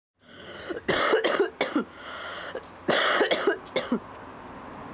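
A person coughing in two short fits of several coughs each, about two seconds apart, over a steady background hiss.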